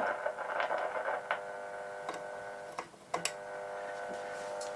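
AWA Radiola 617 valve radio's loudspeaker giving a steady buzzing hum with sharp clicks and crackles, dipping briefly about three seconds in: the set coming to life on first power-up and just starting to pick up signal.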